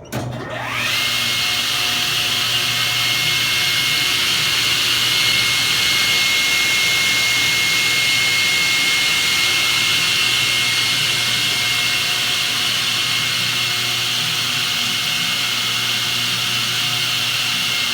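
Tannewitz Model U table saw started up: the motor and blade spin up within about a second to a steady high whine over a loud rushing hiss, then run at speed, the whine starting to drop in pitch near the end.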